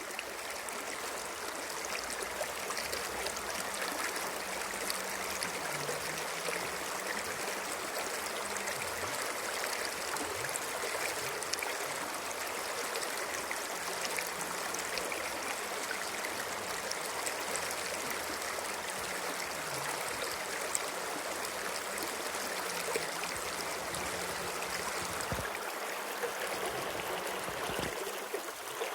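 Water of a small stream running, a continuous, even rush.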